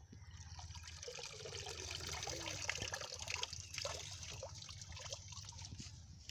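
Pond water splashing and trickling, many small sloshes and drips, as someone wades and lifts things out of shallow water among floating water plants.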